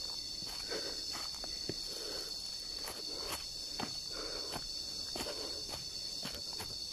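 A steady high-pitched insect chorus, with uneven footsteps on dry leaf litter and rocks as a hiker walks down a forest trail.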